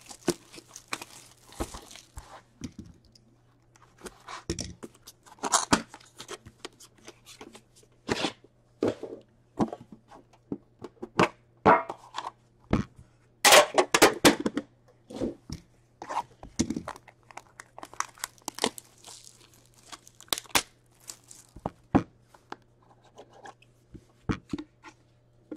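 Plastic shrink wrap being torn and crinkled off a cardboard hockey card box, in irregular crackling bursts with the loudest cluster a little past halfway, mixed with the cardboard box being handled and opened.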